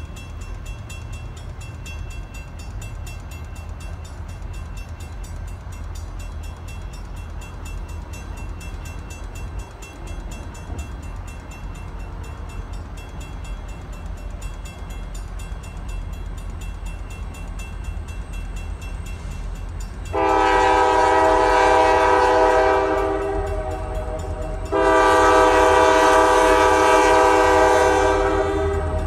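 Grade-crossing warning bell ringing in a steady rapid rhythm over the low rumble of an approaching diesel locomotive. About twenty seconds in, the locomotive's air horn sounds a long blast, and after a short break a second long blast near the end.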